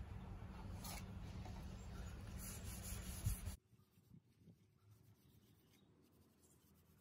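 Scratchy rubbing of a cleaning pad scrubbed along a wet teak handrail, under a steady low rumble that cuts off abruptly about three and a half seconds in; after that only faint rubbing and small ticks.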